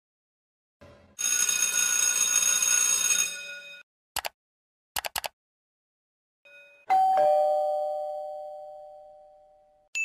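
Electric school bell ringing for about two and a half seconds, then a few quick computer mouse clicks, then a two-note ding-dong chime, a higher note then a lower one, ringing out and fading over about three seconds.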